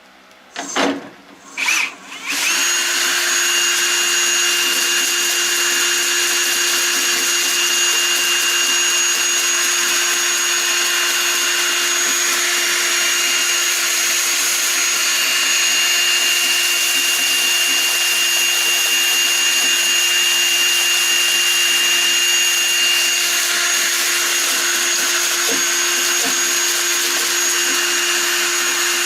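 Two brief knocks, then a Shopsmith's electric motor comes on about two seconds in and runs steadily with a whine, the lathe set to its slowest speed of 250 RPM.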